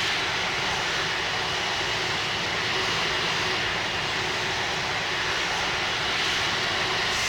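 Steady, unbroken drone of an Airbus A330-300's jet engines.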